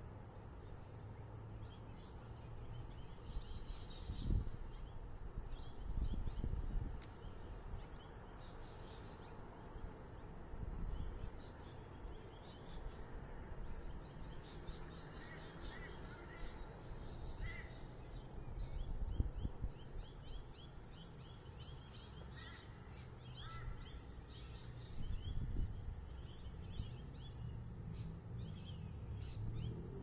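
Outdoor suburban ambience: birds calling on and off, over a steady high insect drone and a low rumble that swells now and then.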